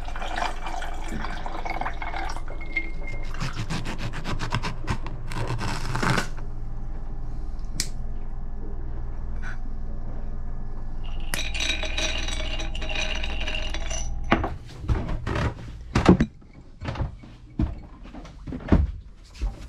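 Water poured from a bottle over ice cubes into a glass, with a second pour a little later, over a steady low hum. The hum stops about three-quarters of the way in, and a run of sharp clinks and knocks follows as glasses and a plate are set down.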